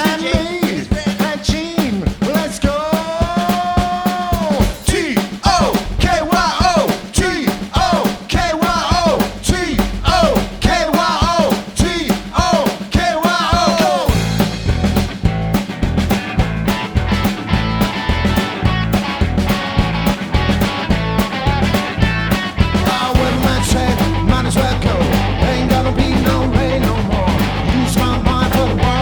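Rock band playing live: drums and guitar with singing, the low end filling out heavily about halfway through.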